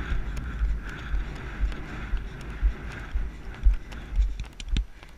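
Horse's hooves beating on the sand arena surface, picked up from the rider's helmet camera: regular thuds about twice a second, with a few sharp clicks near the end.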